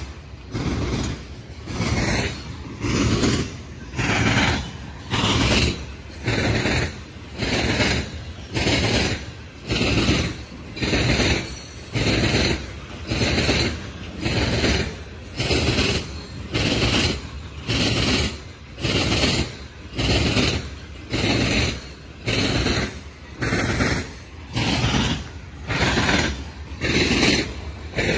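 Freight train of covered hopper cars rolling past at a steady speed, its wheels clattering over the rail in a regular clickety-clack that comes about once a second.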